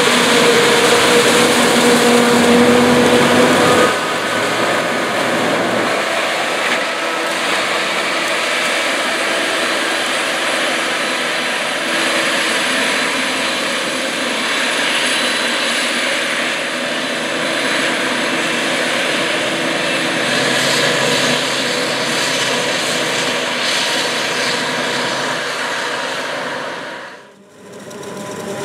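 Claas Jaguar 960 self-propelled forage harvester running under load while chopping standing corn and blowing silage out of its spout: a loud, steady machine noise with high whining tones over it. The sound dips briefly near the end.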